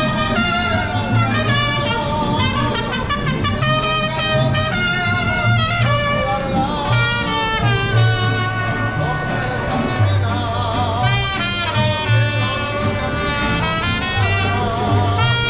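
Background music: an instrumental tune with a melodic lead line over a pulsing bass.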